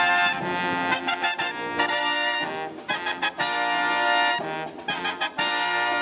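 Brass marching band of trumpets, trombones and a sousaphone playing a fanfare, with a marching drum: short punchy chord hits and brief breaks, then long held chords.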